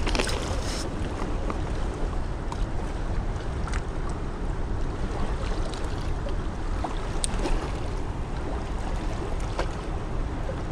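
Steady wind rumble on the microphone, with a few faint clicks from handling a small walleye and the fishing gear.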